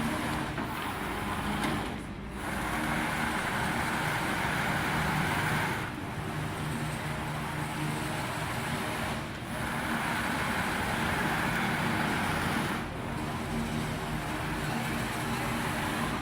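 Fiber laser CNC cutting machine running on steel sheet: a steady machine hum under a cutting hiss that breaks off briefly about every three and a half seconds, between cuts.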